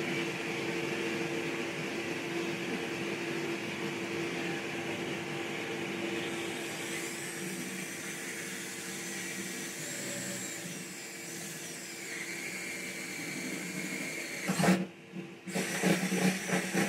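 DeWalt cordless drill running steadily as it bores a hole through a wooden mounting strip, with an even motor whine; it stops near the end and is followed by a few short, uneven sounds.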